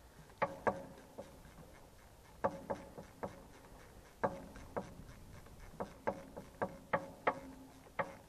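Ratchet socket wrench working the bolts of a tractor's hydraulic distributor: sharp metallic clicks, each with a short ring, in small irregular groups that come faster in the second half.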